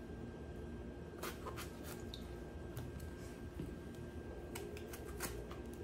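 Knife cutting through a hand-held eggplant: a scatter of short, sharp cuts, with the pieces dropping into a bowl of salted water.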